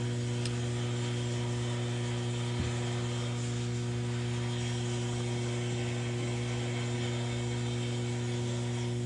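Steady low electrical hum, a constant mains buzz that does not change.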